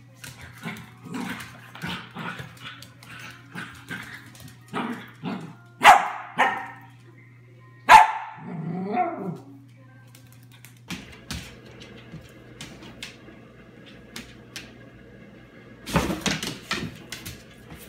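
A puppy barking at a cat in play: a run of short yaps, then two loud sharp barks about two seconds apart. After a quieter stretch of clicks, another loud burst comes near the end.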